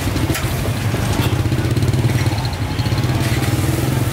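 A motorbike engine running steadily, with the hum of street traffic around it.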